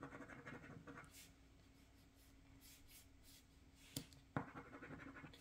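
Faint scratching of a scratch-off lottery ticket's coating, in short strokes with a pause in the middle and a small click about four seconds in.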